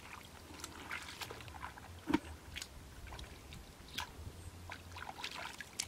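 Hands splashing and squelching in shallow muddy water as they grope through the mud for fish, in irregular small splashes with one louder splash about two seconds in.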